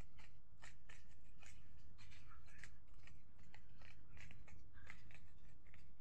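Plastic 3x3 Rubik's-type cube being turned quickly by hand, its layers clicking as each turn snaps into place, about three or four irregular clicks a second over a steady low hum.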